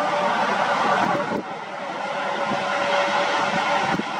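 Airbus A300-600 freighter's jet engines during the landing rollout: a loud, steady rushing noise with a thin whine held through it, dipping briefly about a second and a half in.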